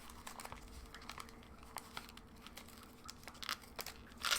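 Foil booster-pack wrapper crinkling faintly as it is worked open with a knife: scattered light ticks, with a louder crinkle near the end.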